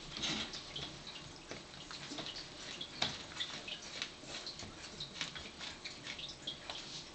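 Four-week-old bull terrier puppies moving about a pen: a quiet scatter of irregular small ticks and clicks with faint high squeaks.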